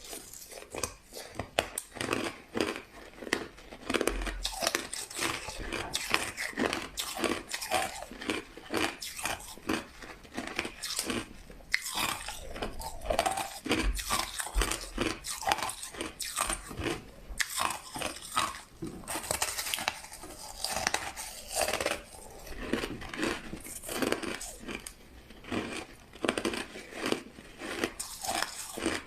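White crushed ice being bitten and chewed: a continuous run of crisp, irregular crunches.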